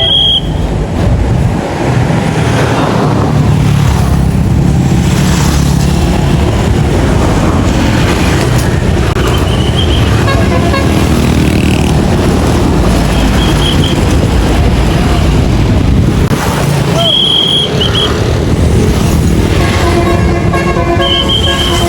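Bus engines and street traffic running loudly and steadily, with short high toots every few seconds. Near the end a bus's multi-tone telolet horn sounds.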